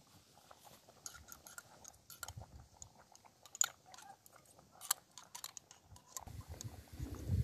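A spoon scraping and clicking against the inside of a small glass jar as tomato paste is scooped out, in a string of short, sharp clicks and scrapes. About six seconds in, a low rumbling noise sets in.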